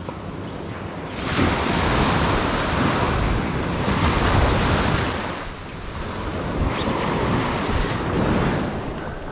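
Small Gulf surf breaking and washing up the sand at the shoreline, swelling about a second in and again after a brief lull past the middle, with wind buffeting the microphone.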